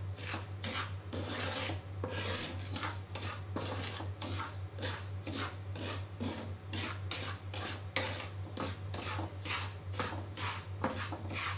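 Wooden spatula stirring and scraping dry semolina around a nonstick frying pan, a steady run of gritty rasping strokes, about two to three a second, as the rava is dry-roasted.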